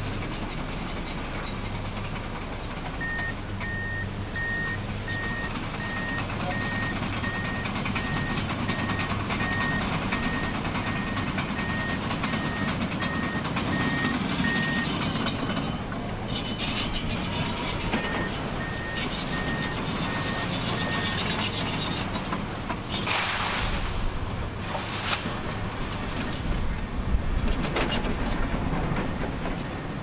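Komatsu D85EX crawler bulldozer working, its six-cylinder diesel running steadily, with its reversing alarm beeping about one and a half times a second for long stretches. Near the end its tracks and blade clank and scrape over stony ground.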